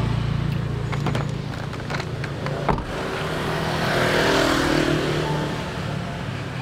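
Street traffic: an engine hums steadily, and a passing motorbike swells up, loudest about four seconds in. There are a few sharp clicks, the strongest just under three seconds in.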